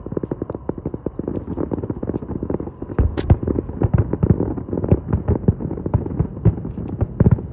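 Fireworks going off in a rapid, dense crackle of sharp bangs, with a louder crack about three seconds in and a cluster of heavier booms near the end.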